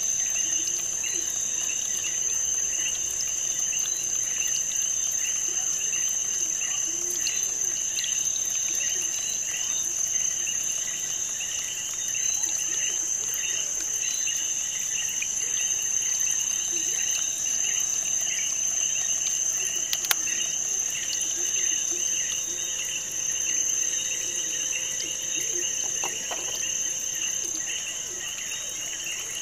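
Insects chirping: a steady high trill with rows of short, rapidly repeated chirps, like crickets. A single sharp click sounds about two-thirds of the way in.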